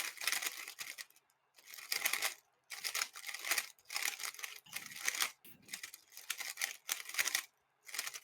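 Plastic speed cube being turned: quick runs of clicking and clacking, each lasting a fraction of a second, with short pauses between them.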